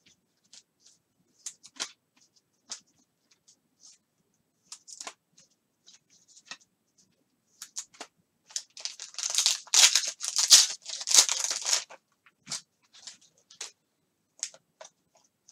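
A foil trading-card pack being torn open by hand: a loud ripping and crinkling run of about three seconds starting some eight and a half seconds in, amid light clicks and rustles of cards being handled.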